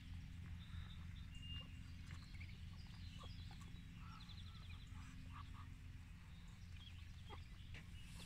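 Muscovy ducklings peeping faintly and intermittently, with a few short clicks, over a low steady background hum.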